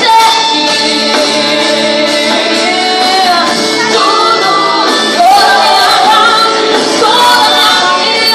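Live worship song: a woman singing a long, bending vocal line over a band's held chords, with the reverberation of a large hall.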